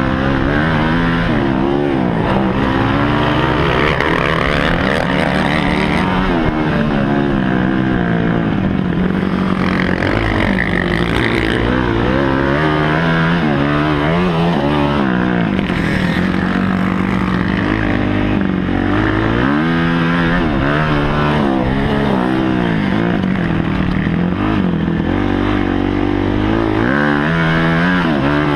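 Kawasaki KX250F's single-cylinder four-stroke engine revving hard while riding a motocross track, heard on the bike. Its pitch climbs and drops again and again as the rider accelerates, shifts and backs off the throttle.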